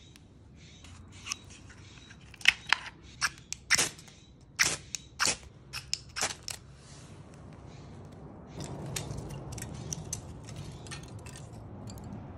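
A ferro rod struck with its scraper a dozen or so times in quick, sharp scrapes over about five seconds to throw sparks onto fire-plug tinder. Later, a steady low rush with light crackles as the kindling fire burns.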